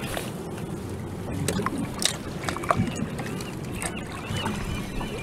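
Water sloshing and gurgling around a fishing kayak on a windy, choppy sea, with scattered small knocks. From about three and a half seconds in comes a run of short high chirps, two or three a second.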